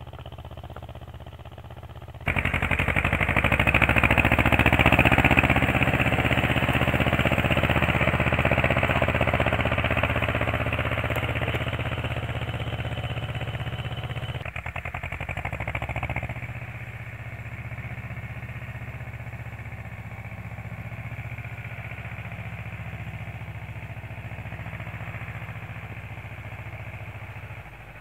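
Ursus tractor's diesel engine running steadily under load while pulling a seed drill. It jumps much louder about two seconds in and drops back to a lower level about halfway through.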